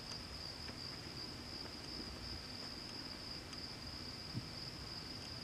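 Crickets chirping in a steady, high-pitched chorus over faint background hiss.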